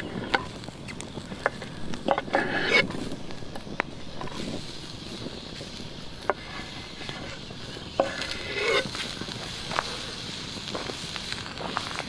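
Chopped onions sizzling in oil in a skillet over a wood campfire, with the fire crackling in sharp scattered clicks. Partway through, the sizzle gets brighter as chopped bell peppers are tipped from a wooden cutting board into the pan, with a few knocks and scrapes of the board.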